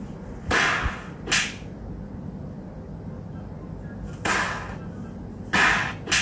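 Five sharp slaps in a game of ddakji, unevenly spaced: two close together early, then three more in the second half.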